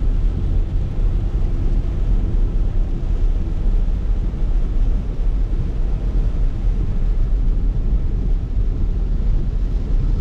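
Steady low rumble of a car's engine and tyres heard from inside the cabin while driving on a rain-soaked road.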